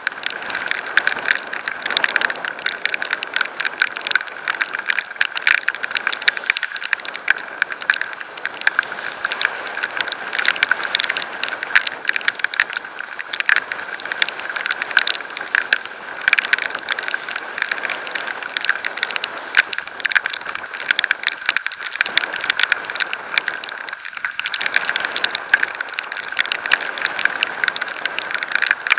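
Heavy rain pelting the camera while riding at speed, a dense patter of sharp drop impacts over a steady hiss of rushing air and spray; the drops strike hard, like hail.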